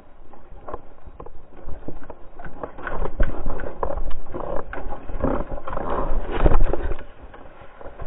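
Mountain bike clattering and rattling over a rough dirt forest trail, with a low rumble of wind on the microphone. The knocking grows louder from about three seconds in and drops off sharply about seven seconds in as the bike slides out and the rider falls.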